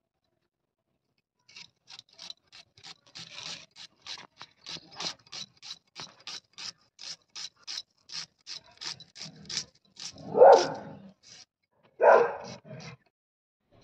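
Red onion being sliced on a boti, a fixed curved kitchen blade, making crisp crunching cuts at about three or four a second. Two louder short sounds come near the end.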